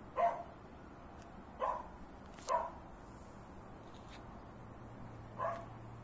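A dog barking four times, single short barks spaced unevenly: three in the first half and one more near the end.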